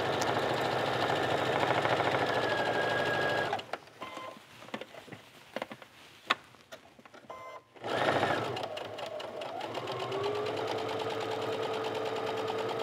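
Electric sewing machine stitching a neckline seam at steady speed, stopping for about four seconds in the middle with a few light clicks while the fabric is turned at the pivot point of the V, then stitching again.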